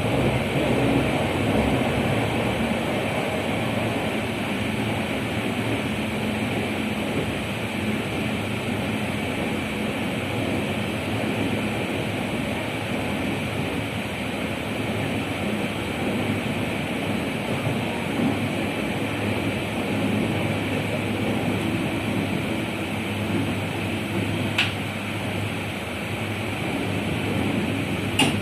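Passenger train running along the track: a steady rumble and hiss of the moving coach, with two short sharp clicks near the end.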